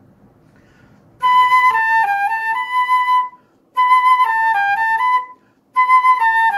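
Concert flute playing the same short phrase three times with brief gaps between, after about a second of quiet. Each phrase steps down through a few notes and back up, and the third begins near the end.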